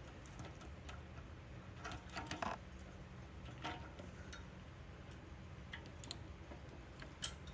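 Scattered light clicks and taps of small engine parts being handled as the carburetor and its linkages are worked off a Briggs & Stratton engine, with a cluster of clicks about two seconds in and one sharper click near the end, over a low steady hum.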